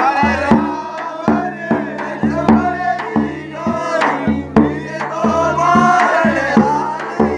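Rajasthani Phagan folk song: a male voice singing a wavering melodic line over regular hand-drum strokes and a steady held accompaniment.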